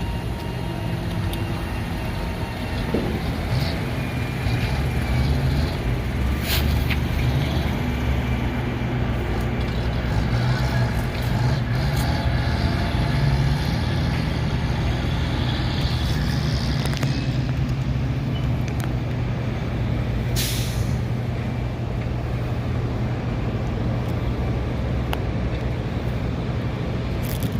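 Heavy trucks' diesel engines running steadily as a convoy moves out, with two short air hisses, about six seconds in and about twenty seconds in.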